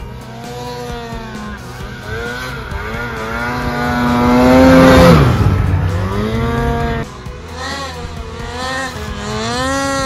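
Mountain snowmobile engine revving hard as the sled rides through deep powder. It gets loudest as it passes close by about halfway through, its pitch swooping down as it goes. After a sudden cut, a sled revs up and down again.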